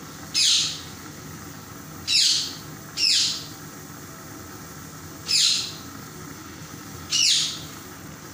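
A bird's short, high calls, each falling sharply in pitch, five times at uneven intervals of a second or two, over the steady sizzle of chicken cubes frying in oil in a pan.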